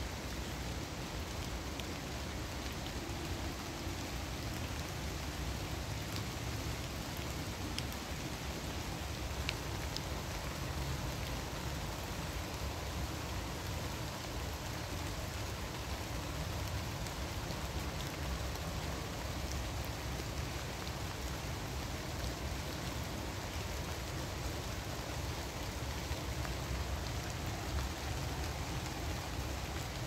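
Steady rain falling on the leaves of a deciduous forest canopy, an even patter with a few sharper single drop ticks, over a low steady rumble.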